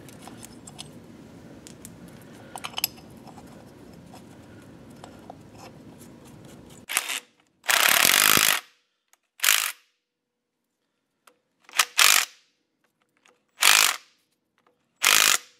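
A few faint clicks of metal parts being handled, then from about seven seconds in a DeWalt cordless impact driver hammering in half a dozen short bursts, the longest near eight seconds. It is running the cap bolts down on a forklift's wheel hub cap.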